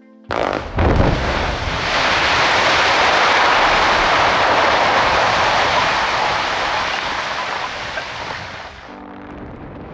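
Quarry blast: a sharp report about a third of a second in and a heavier, deeper boom about a second in as the row of blast holes fires, followed by a long rushing noise of the blasted rock face collapsing, which fades and drops away near the end.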